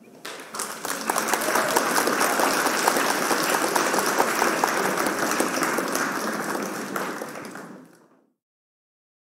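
Crowd applause: many hands clapping, swelling in over the first second, holding steady, then fading away near the end.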